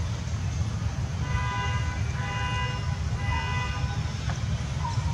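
A vehicle horn sounding three toots, one after another, over a steady low rumble.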